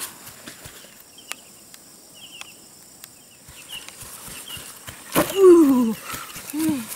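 A person's voice: two loud exclamations, each falling in pitch, about five and six and a half seconds in. Faint high chirping comes before them.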